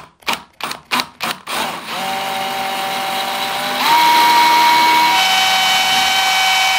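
Power drill with a tile drill bit boring into glossy ceramic wall tile, with no hammer action: a steady whine that starts after a few short clicks, steps up in pitch about four seconds in and shifts again a second later.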